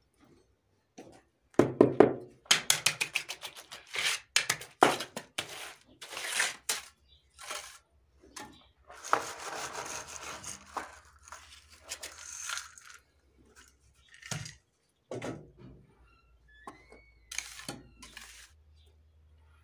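Steel mason's trowel working wet concrete beside a wooden screed board: a run of quick taps and scrapes, then a longer smoothing scrape about nine seconds in, and a few scattered knocks.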